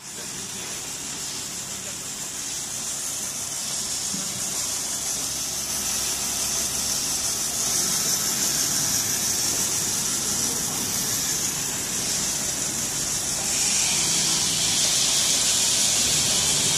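Spool winding machine winding blue PET film at speed: a steady, high hiss of the film running over the rollers onto the spinning reel. The hiss grows gradually louder and steps up again near the end.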